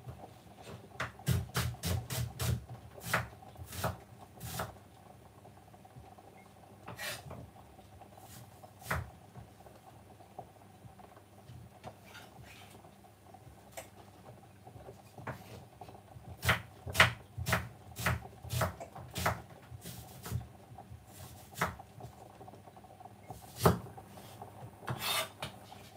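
Knife slicing red onion on a wooden chopping board: irregular runs of sharp taps, a few a second, with pauses between runs and a louder clatter near the end as the slices go into the steel saucepan.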